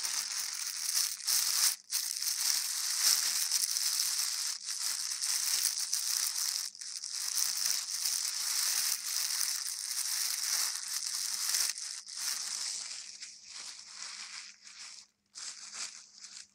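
Close, dense crinkling and crackling rustle with a few short breaks, thinning out and growing patchier in the last few seconds.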